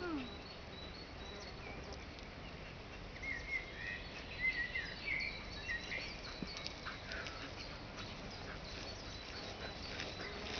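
Quiet open-air field ambience with faint, short bird chirps, most of them in a cluster around the middle, over a thin steady high hum.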